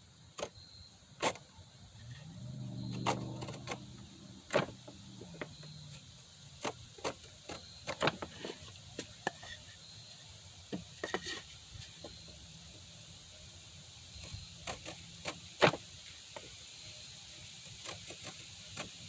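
Scattered light clicks and knocks of hand tools and wood being handled on a workbench while laying out gauge lines, with a low hum swelling and fading between about two and six seconds in.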